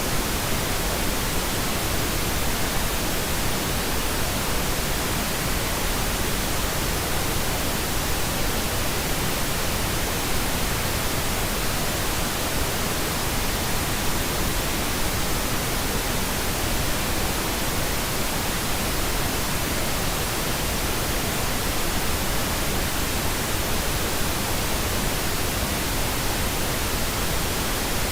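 Steady white noise from a white noise machine track: an even, unchanging hiss spread across all pitches, slightly brighter at the top.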